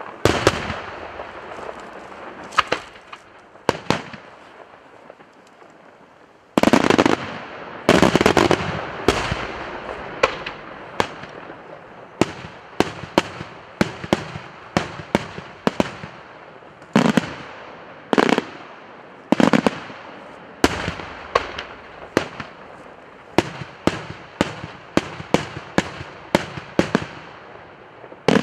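Daytime aerial firework shells bursting overhead in a string of sharp bangs. A few separate reports come first, then a dense cluster about six seconds in, then an irregular run of bangs, roughly two a second.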